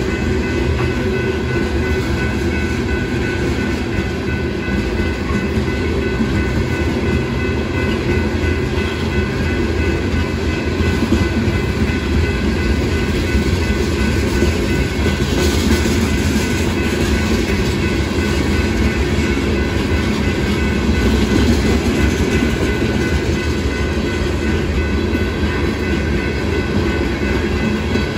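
Loaded rock-train gondola cars rolling steadily past over a grade crossing: a continuous deep rumble of steel wheels on rail with rattling clickety-clack.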